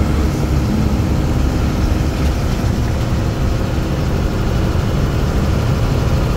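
Steady deep rumble of engine and road noise heard from inside a moving vehicle.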